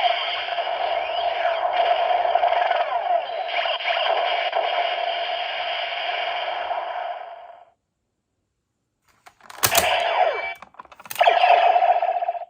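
DX NEO Decadriver toy belt's small built-in speaker playing a thin electronic sound effect with a steady tone that cuts off about seven and a half seconds in. After a short pause come sharp plastic clicks from the belt's parts being worked, each followed by a brief burst of electronic toy sound.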